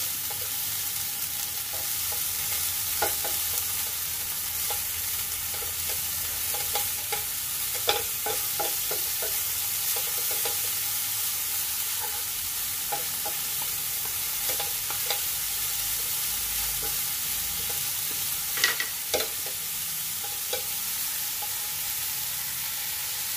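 Bean sprouts sizzling in hot oil in a wok as they are stirred and tossed with two wooden spatulas, with scattered knocks of the spatulas against the pan, the sharpest about eight seconds in and again near nineteen seconds.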